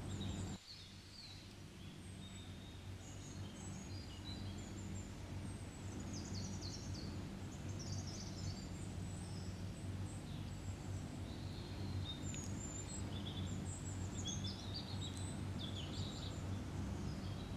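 Small birds chirping on and off over a steady low hum.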